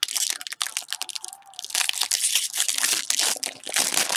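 Foil wrapper of a Topps baseball card jumbo pack crinkling and tearing as it is ripped open by hand, with a short lull about a second in before louder crinkling.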